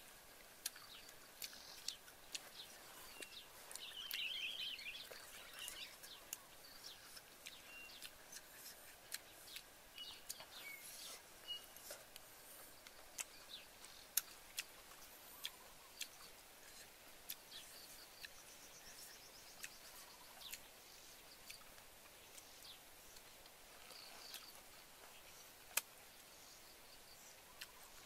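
Quiet woodland with birds chirping now and then, including a short high trill about four seconds in, over many small sharp clicks and ticks.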